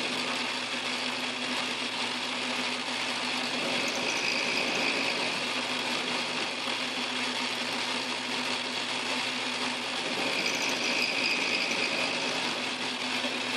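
Lathe motor and spindle running steadily while a rotating cutter in the chuck mills a cut across a metal tube clamped in a milling vise, a machine hum under a cutting hiss. A higher cutting whine swells briefly twice, about four seconds in and again near ten seconds.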